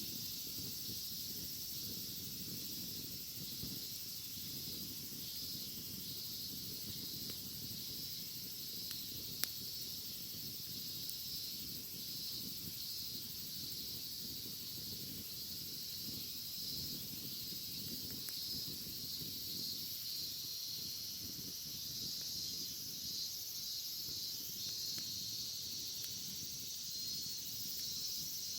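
Cicadas calling in a steady high-pitched drone, over the low crackle of a bonfire, with one sharp snap about a third of the way in.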